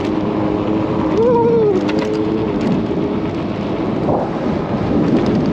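Heavy wind buffeting a forehead-mounted GoPro's built-in microphone while riding an electric scooter, a loud, rumbling rush of noise with a faint steady hum underneath.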